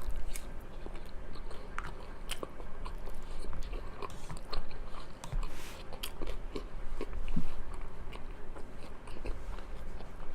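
A person chewing food close to the microphone, with scattered irregular mouth clicks and small crunches.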